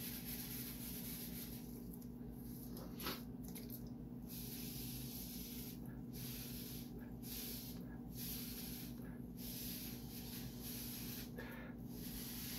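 Air hissing from a thin hose blown over wet epoxy resin, in spurts of one to two seconds with short breaks, over a steady low hum. A single tap comes about three seconds in.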